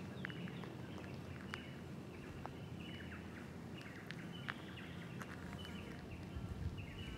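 Small birds chirping repeatedly with short falling calls, over steady outdoor background noise and a low rumble, with a few faint scattered ticks.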